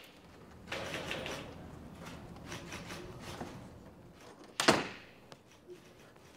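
A wooden interior door with a lever handle is opened, with rustling and movement. About four and a half seconds in, it swings shut with one loud thud.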